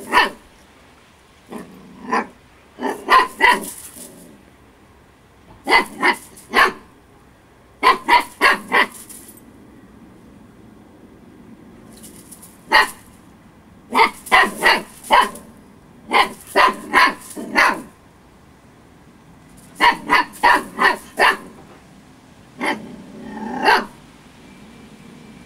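Eight-week-old Siberian husky puppy barking in play: repeated volleys of two to five short barks with pauses of a second or two between them.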